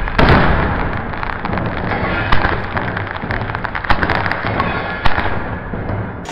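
Fireworks crackling: a dense run of sharp cracks and pops over a steady hiss, with several louder cracks spread through it.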